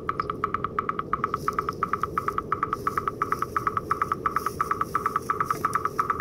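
A rapid, evenly repeating pulsed tone, about five or six pulses a second, over a steady low hum.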